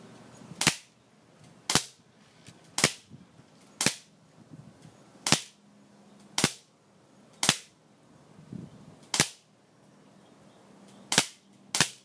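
Shooting of a Walther P99 CO2 blowback airsoft pistol: about ten sharp cracks, roughly a second apart, with the last two coming quicker.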